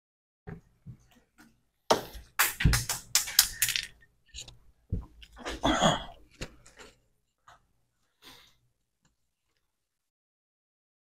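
Scattered clicks, knocks and rustling from objects being handled, with a quick cluster of clicks about two to four seconds in and a rustling stretch around the middle.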